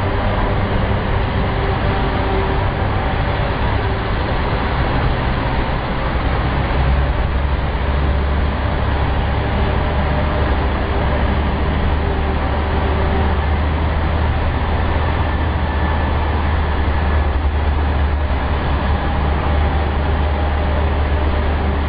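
Road-tunnel traffic noise: a heavy vehicle's engine running close alongside in a steady low drone over echoing road noise. The drone grows louder about seven seconds in.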